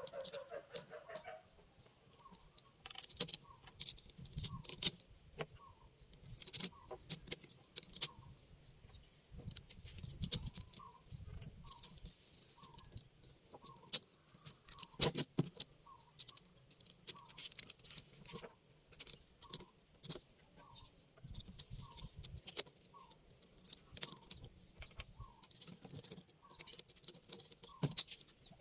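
Metal parts and tools clinking and clattering in irregular sharp clinks, with a few soft thumps. Behind them a faint short chirp repeats roughly once a second.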